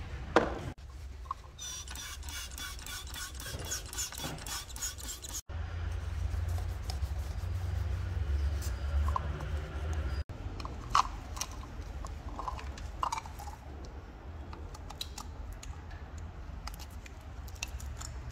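Brisk, rapid scrubbing of a stiff brush on a plastic oil filter housing cap, then scattered clicks and knocks as the cap is handled, over a steady low hum.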